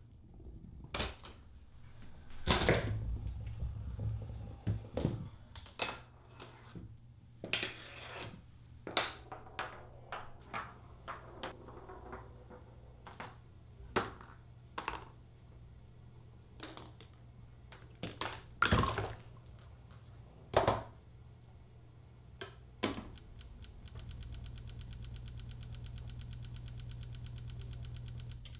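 A home-built chain-reaction machine made of kitchen objects running: irregular clicks, knocks and clatters as balls, wooden pieces and utensils trip one another, with a few louder knocks. For the last four seconds or so a steady, fast mechanical rattle runs along with a low hum.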